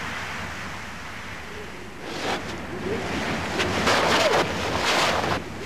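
Wind blowing across the microphone: a steady rush with louder gusts in the second half.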